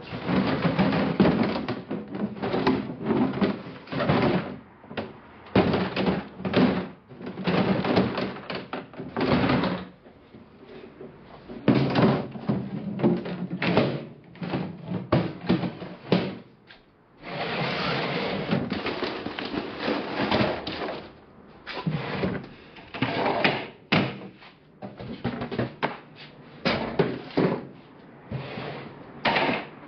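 Irregular bangs, knocks and scraping as plastic totes, wooden pallets and metal roller conveyor sections are handled and shifted on a trailer's wooden floor. A little past halfway comes a few seconds of unbroken rattling and scraping.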